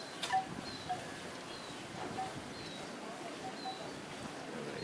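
Birds calling in short, repeated chirps, some high and falling, others lower, over a steady outdoor hiss, with one sharp click about a quarter second in.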